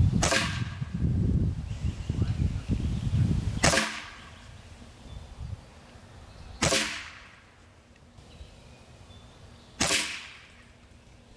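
Reximex Throne Gen 2 Compact PCP air rifle firing four shots about three seconds apart, each a sharp crack with a short ring after it. A low rumble runs under the first two shots and stops after about three and a half seconds.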